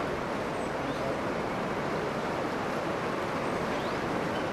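Steady rushing of floodwater from a river in flood flowing fast over a road and around obstacles, an even unbroken noise.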